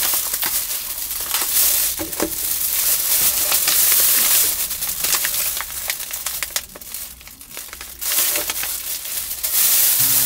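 Thin plastic shopping bag rustling and crinkling as it is handled and items are pulled out of it, easing off briefly about two-thirds of the way through.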